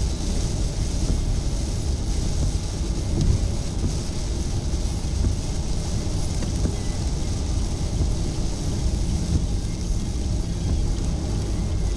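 Car cabin noise while driving in heavy rain: a steady low road rumble with a hiss of rain and wet tyres.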